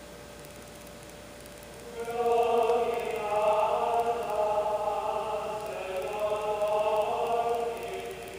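Choir chanting long held notes in several voices on a film soundtrack. The voices swell in about two seconds in, over quieter sustained music, and fade near the end.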